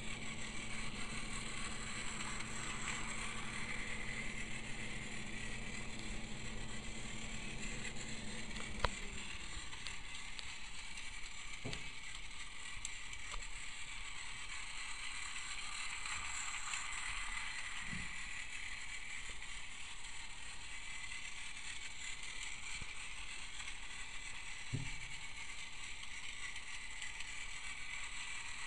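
Battery-powered Tomy Plarail Percy toy train running on plastic track: a steady high motor-and-gear whir that swells and fades about every twelve seconds. A low hum stops with a sharp click about nine seconds in, and a few soft knocks follow.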